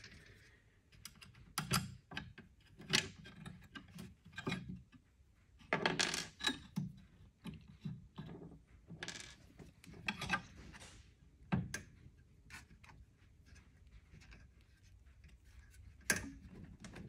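Irregular metal clicks, clinks and knocks as clevis pins and cotter pins are worked out of the mounting brackets of a bed's electric linear actuators on an aluminium frame.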